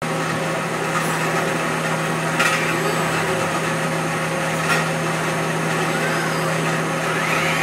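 Industrial robot arm loading a CNC lathe: faint servo whines rising and falling as the arm moves, over a steady machine hum, with two sharp knocks about two and a half and nearly five seconds in.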